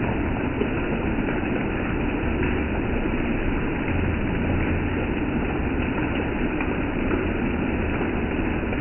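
Steady rain falling: a dense, even hiss with a few faint ticks.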